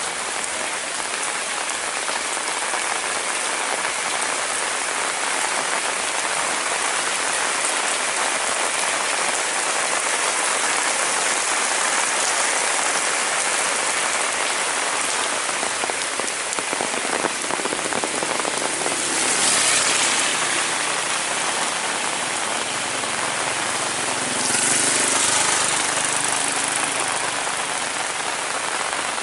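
Heavy rain falling steadily, a dense, even hiss of downpour. It swells louder twice for a moment in the second half.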